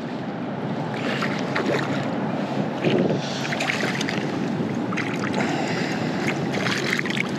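Wind buffeting the microphone over a choppy pond, with a few brief splashes of water close to the bank.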